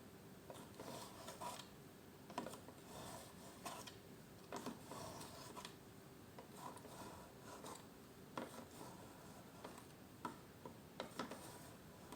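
Victorinox Swiss Army knife blade drawn through a kitchen knife sharpener: faint scraping strokes and light clicks at irregular intervals.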